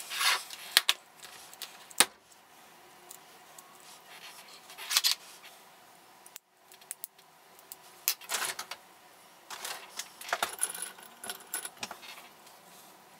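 Small hand-tool handling: a thin pointed metal tool clicking and scraping against a small black valve pin as it is pried apart by hand, with a sharp click about two seconds in.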